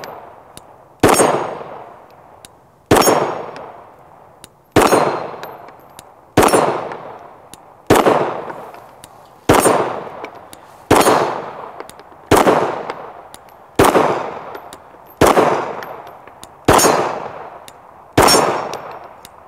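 9mm Glock 19 pistol fired twelve times in slow, aimed succession, about one shot every second and a half. Each sharp report fades out over a second or more, with a metallic clang from steel targets being hit.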